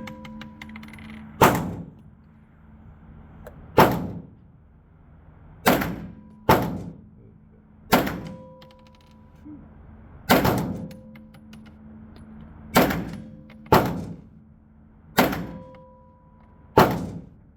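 Gunshots on a shooting range: ten single shots fired one at a time, one to two and a half seconds apart, each trailing off in a short echo.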